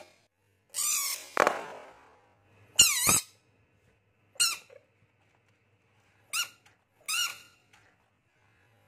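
A bullfrog giving short, high-pitched distress screams as a balloon is pushed at it: about six separate cries, most of them falling in pitch, the loudest about three seconds in. A rubbery squeak from the balloon comes about a second and a half in.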